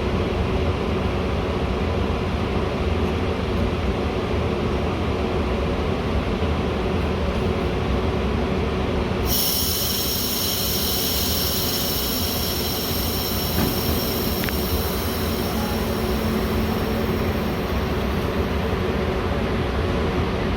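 Metra commuter train running with a steady rumble; about halfway through, a high-pitched metallic wheel squeal starts suddenly and holds on.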